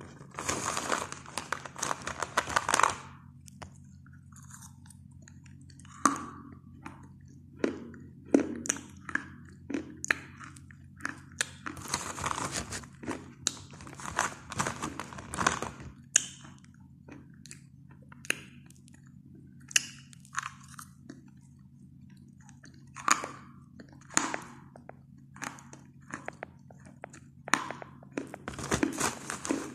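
Colourful chalk bites crunched with a spoon: a dense run of crisp crunching at first, then scattered sharp cracks and clicks with short pauses between them, with busier spells in the middle and near the end.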